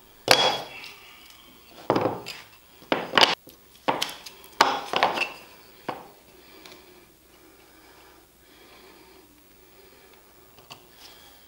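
Workshop handling noises: wenge cleats, tape and a clear acrylic router jig knocked and set down on a plywood-covered workbench. About six sharp knocks and clatters come in the first six seconds, then only faint rustling.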